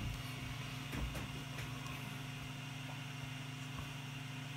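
Steady electrical hum of a bench laboratory power supply, a low hum with a faint higher whine, while it powers a phone. A few faint clicks of the phone being handled.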